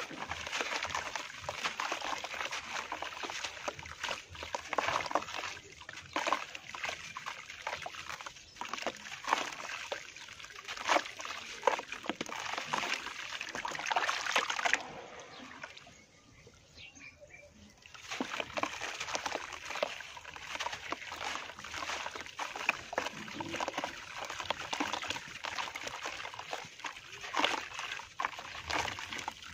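A dry, dusty lump crumbled and squeezed by hand in a tub of water: gritty crackling and crumbling with sloshing and splashing water. It goes quiet for a few seconds about halfway through.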